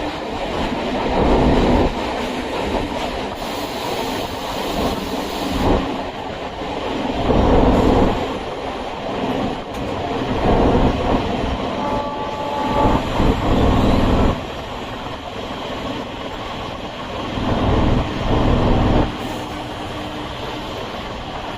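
Chennai MRTS suburban electric train running along the track, heard from on board: a steady rumble of wheels on rail that swells louder every few seconds.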